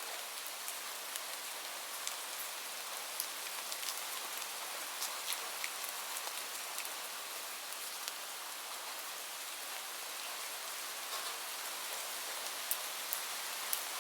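Steady rain: an even hiss with single drops ticking sharply here and there, a few louder drops near the end.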